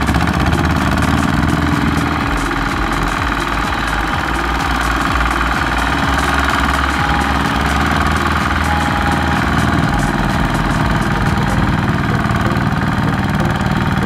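Two-wheel walking tractor's single-cylinder diesel engine running steadily at a loud, even level, labouring under load while the tractor is stuck in deep mud.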